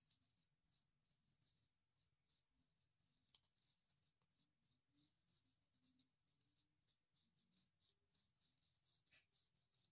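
Very faint, irregular scratching of a metal spoon scraping powder through the mesh of a small plastic tea strainer.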